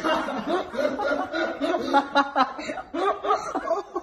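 A person laughing, a run of short, quick chuckling bursts.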